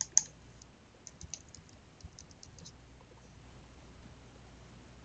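Computer keyboard keystrokes: two sharper clicks right at the start, then a quick run of light taps between about one and three seconds in.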